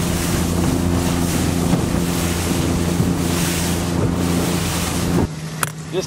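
Outboard-powered bass boat running fast over choppy water: a steady engine drone under a heavy rush of wind and water. About five seconds in this cuts off suddenly to a quieter, steady low hum, with a single click.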